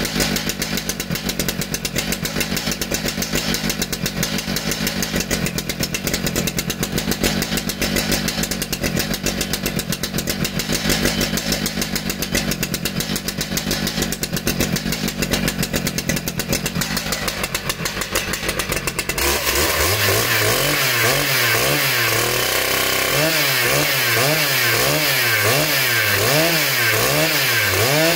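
Stihl MS 881 chainsaw, a large single-cylinder two-stroke with a 120 cm bar, idling steadily as it warms up after a cold start. About 19 seconds in it goes to higher revs and gets a little louder, and its pitch swings up and down over and over.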